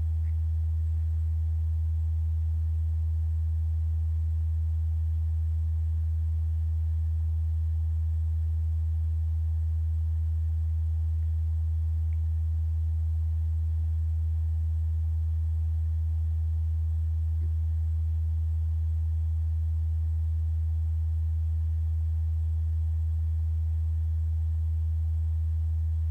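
A steady low-pitched hum on one unchanging tone, with nothing else standing out above it.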